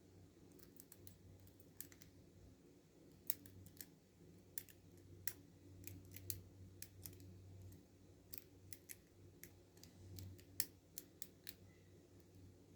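Small, irregular metallic clicks of a hook pick and tension wrench working the pin stack inside a Paclock 90A padlock held in hand, faint and scattered a few at a time, over a low steady hum.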